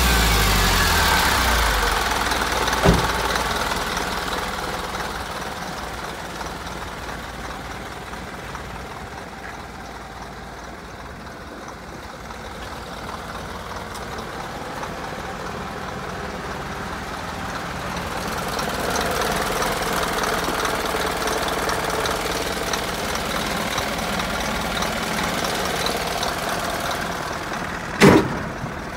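Isuzu Forward truck's turbodiesel engine coming down from a rev at the start, then idling steadily. A sharp knock sounds near the end, louder than the engine.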